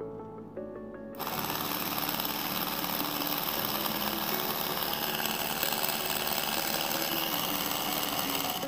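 Small DC motor switched on about a second in, spinning a toothed timing belt and pulleys with a loud, steady whir, until it stops suddenly near the end.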